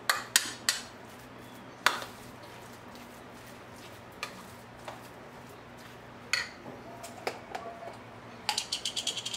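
Metal spoon clinking against a ceramic bowl while stirring potato salad, in scattered sharp clinks, then a quick run of about eight clicks near the end.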